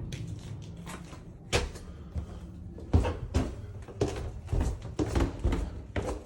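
A string of irregular knocks and bumps, about one or two a second, getting louder and closer together after the first second and a half.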